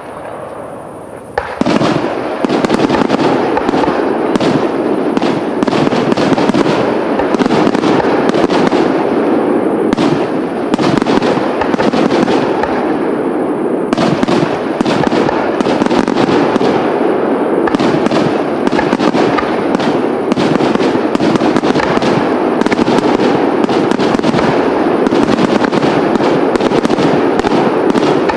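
Fireworks display of aerial shells bursting. After a quieter moment, a dense barrage of rapid, overlapping bangs starts about a second and a half in and keeps on without a break.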